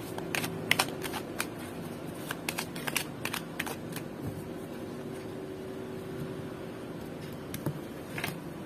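Oracle card deck being shuffled by hand: a quick run of card flicks and slaps in the first few seconds, quieter in the middle, then a few more near the end.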